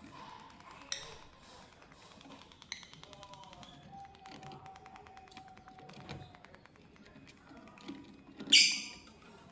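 Lovebird pecking at corn, giving many quick small taps and clicks of its beak, with one loud, shrill chirp about eight and a half seconds in. Soft background music with a few held notes plays underneath.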